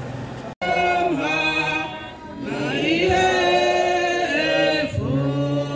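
A group of voices singing a slow hymn without instruments, in long held notes, led by a man's voice. The sound cuts out for a moment about half a second in, and the singing starts right after.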